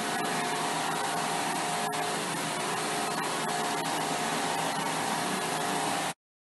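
A steady whirring machine noise with a faint steady hum running through it; it cuts out to dead silence about six seconds in.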